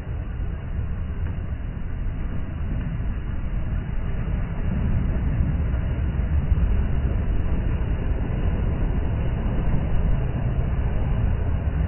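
Sea waves breaking and washing up a sandy beach: a steady, low surf noise that grows a little louder about four seconds in.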